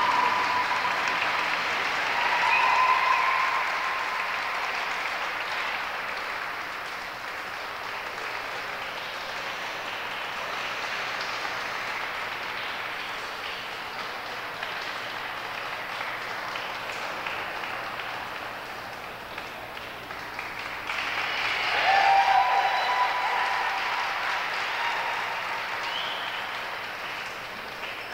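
Audience applauding, thinning out over the middle and then swelling again about twenty-one seconds in before dying away.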